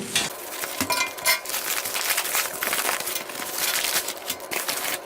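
Parcel packaging being opened by hand: continuous crinkling and rustling of plastic wrapping, with many small clicks and ticks.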